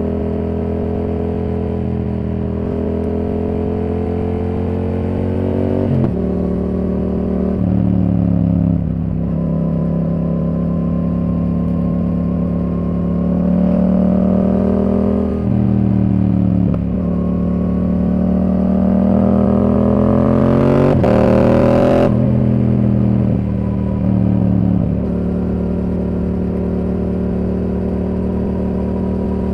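Yamaha R7's parallel-twin engine through a Yoshimura R77 exhaust, the motorcycle riding along with the revs rising and then dropping in steps as it changes gear several times. The longest, loudest pull comes about two-thirds of the way in and cuts off sharply.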